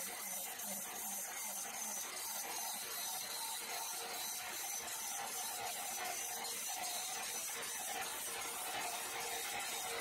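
Horizontal band sawmill blade cutting lengthwise through a log: a steady hiss with a faint wavering whine.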